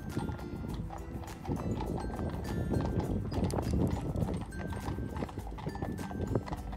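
Horses' hooves clip-clopping on the road, many quick, irregular strikes, as a horse-drawn carriage and its team pass by.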